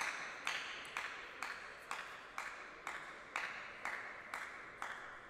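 Table tennis ball struck at a steady rhythm, about two sharp pings a second, each with a short ringing tail, slowly growing fainter.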